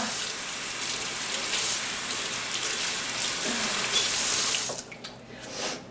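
Kitchen tap running into the sink, a steady rush of water that stops about three quarters of the way through.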